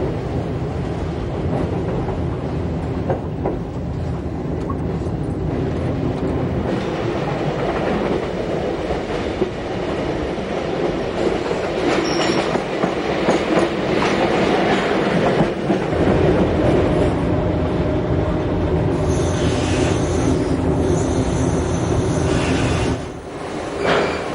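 Train running on the track, a steady rumble with wheels clattering over the rails. Brief high-pitched wheel squeal comes in over the last few seconds.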